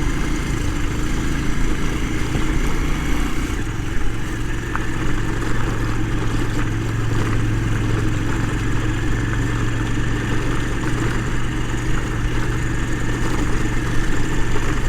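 Motorcycle engine running steadily under way on an uphill dirt road, a constant low hum with a noisy rush over it.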